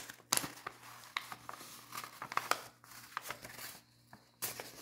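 Folded sheet of paper handled in the hands, crinkling and rustling with scattered crisp crackles and a brief louder rustle near the end.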